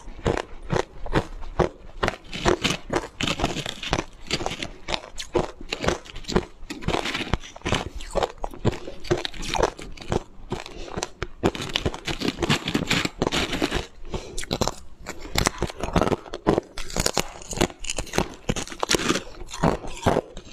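Coloured ice blocks being bitten and chewed: a steady run of crisp, sharp crunches, several a second, as the ice cracks between the teeth.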